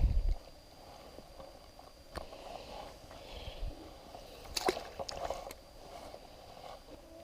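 A dull bump at the very start, then a few scattered light clicks and knocks over faint water sloshing, like fishing gear being handled in a small boat.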